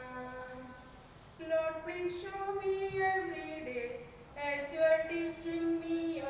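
A woman singing into a microphone with no accompaniment, holding long notes in slow phrases with short breaths between them.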